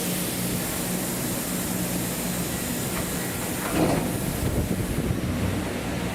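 Large machine tool running in a machine shop: a steady mechanical hum with a constant low tone under a hiss of noise, swelling briefly about four seconds in.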